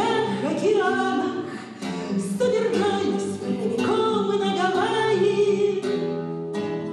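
Woman singing a Russian bard song in full voice, accompanying herself on a classical acoustic guitar.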